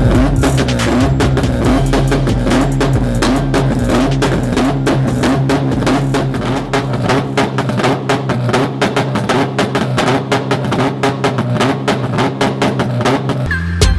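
Music with a heavy, fast drum beat and steady bass.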